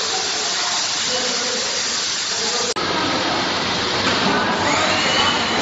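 Steam hissing steadily as a vertical autoclave vents through its solenoid exhaust valve during the automatic exhaust stage, with the chamber at about 115 °C. There is a momentary dropout a little before the middle.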